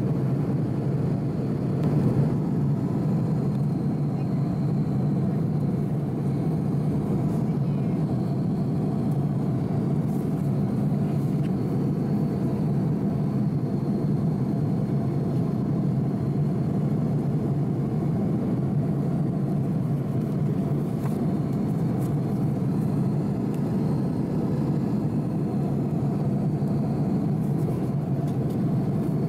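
Airbus A330-300 cabin noise in flight: a steady drone of engine and airflow noise, heaviest in the low range, with a faint steady high whine.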